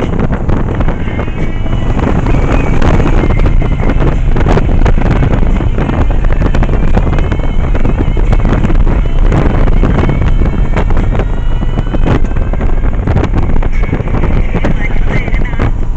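Steady heavy wind buffeting on the microphone of a moving Yamaha 1100 motorcycle, with the bike's engine and road rumble running underneath.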